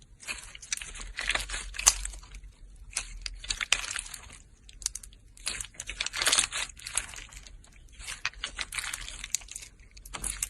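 Crinkling, crackling crunches of gold and silver material being broken up, in four or five bouts of a second or two with short pauses between, full of sharp little clicks.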